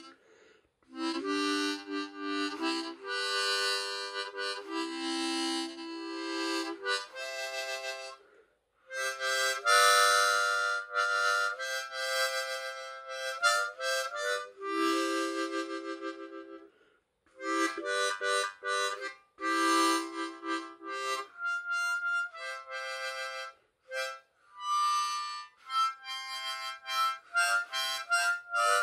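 Hohner Special 20 ten-hole diatonic harmonica in C played haphazardly by a beginner: chords of several reeds sounding together, in phrases of a few seconds with short breaks between them. The tone is bright.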